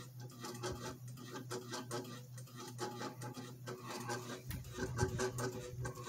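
Cheap mid-2000s ceiling fan running on low speed: a steady motor hum under a rapid run of clicks and ticks. It is a noisy, worn fan, which the owner puts down to nearly two decades of use with little maintenance.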